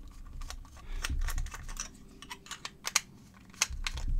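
Irregular small clicks and taps as a plastic-and-aluminium plug-in LED lamp is turned over in the hand and probed with a thin metal tool. There are a few dull low thumps, about a second in and again near the end.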